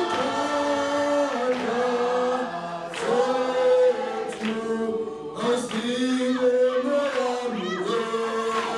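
A group of people singing together in chorus, several voices holding long notes that move together in pitch.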